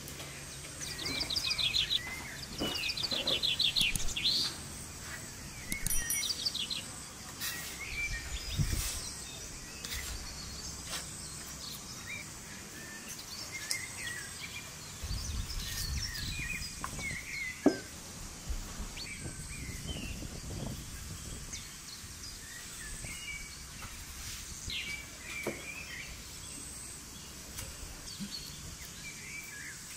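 Small birds chirping on and off, with a few rapid trills near the start, over a steady outdoor hiss. A few light clicks and knocks come in between, the sharpest a little past halfway.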